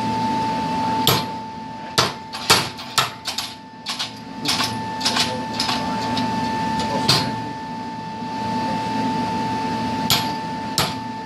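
A homemade spring-return treadle hammer with a 14-pound head strikes steel in a quick, irregular run of sharp blows, then two more single blows spaced out. A steady hum with a constant whine runs underneath.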